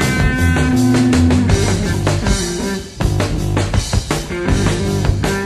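Heavy rock band playing: electric guitar, bass and a drum kit keeping a steady beat, with a long held guitar note at the start.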